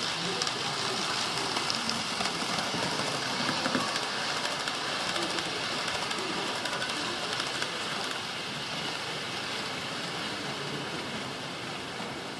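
HO-scale model freight train rolling along the layout track: a steady rolling noise with faint clicks.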